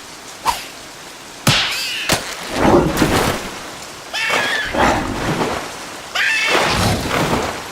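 Cartoon sound effects: sudden bursts of rushing, splashing noise, with high, squeaky nonverbal character vocalisations over them.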